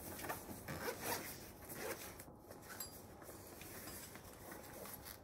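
Cloth rustling and rubbing as a person rummages at the front of his hoodie, in a few short scrapes, mostly in the first two seconds.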